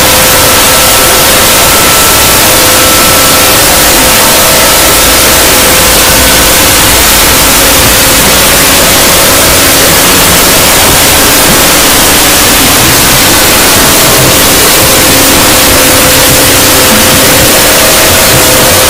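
Harsh, steady static-like noise at full loudness, with faint held tones underneath: a logo soundtrack boosted and distorted until it is mostly noise.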